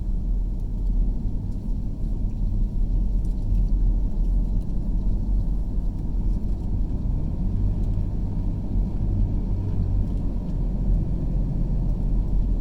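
Steady low rumble of a car driving on a road, engine and tyre noise heard from inside the cabin.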